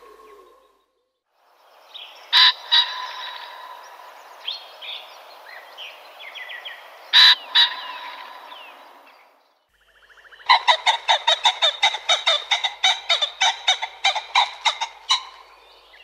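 Male common pheasant calling: two loud, short double-note calls a few seconds apart, then a fast run of about twenty sharp calls at roughly four a second. Faint calls of other birds sound behind it.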